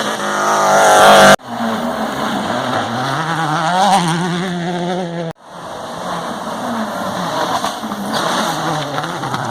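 Rally car engines revving hard as the cars accelerate past, the pitch climbing and dropping through gear changes. The sound cuts off sharply twice, about a second and a half in and again a little after five seconds, as one car's pass gives way to the next.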